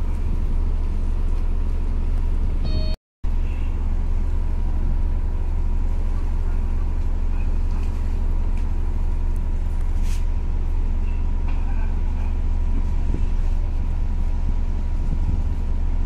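Steady low rumble of a ship's machinery, with a faint steady whine above it; the sound cuts out for a moment about three seconds in.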